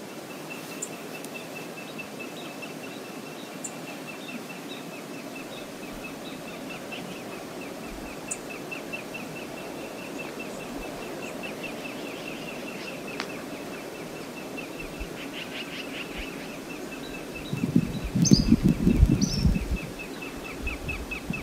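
Outdoor ambience: a steady rushing noise, a fast, even, high ticking that runs throughout, and a few short bird chirps. About eighteen seconds in come a couple of seconds of loud, low rumbling close to the microphone.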